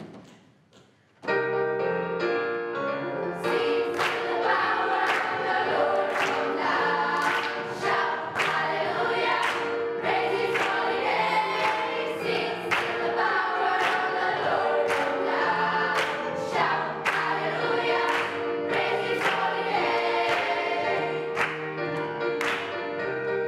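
Children's choir singing with digital piano accompaniment, starting about a second in.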